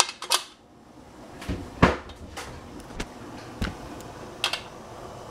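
A series of separate knocks and clunks, about seven, the loudest a little under two seconds in: things being handled in a kitchen around a pressure cooker.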